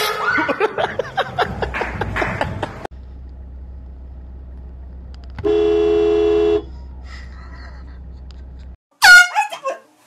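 A vehicle horn sounding once from inside the car: one steady blast of about a second, over a low steady hum. Voices are heard before it, and near the end comes a loud, high cry that falls in pitch.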